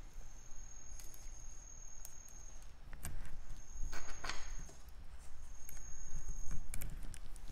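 Faint rustling and a few soft clicks as the straps and buckles of a dog wheelchair are handled. A thin, high-pitched steady tone comes and goes several times.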